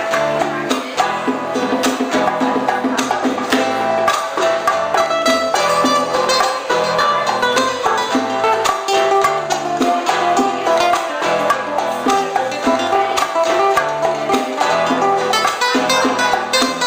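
Live old-school Cuban band music: a plucked-string melody over a repeating bass line and steady percussion.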